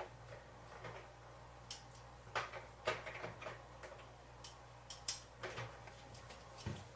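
Irregular small clicks and taps of metal hand tools being handled while different screwdriver bits are tried on a screw, over a faint steady low hum.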